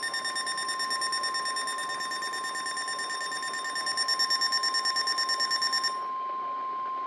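A weather alert receiver's electronic alarm beeps rapidly, about eight beeps a second, and stops abruptly about six seconds in. Under it the steady 1050 Hz NOAA Weather Radio warning alarm tone sounds throughout, announcing that a warning is about to be read.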